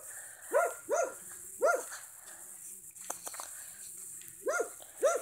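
A dog barking in short single barks: three in the first two seconds, then a pause, then two more near the end.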